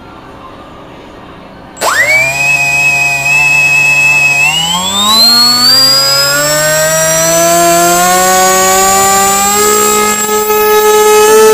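Brushless electric motor of an RC foam glider spinning its propeller on the bench. It starts suddenly about two seconds in with a whine, holds briefly, then climbs in pitch from about four and a half seconds as the throttle is advanced. It keeps rising to full power near the end, a static run-up for a wattmeter reading.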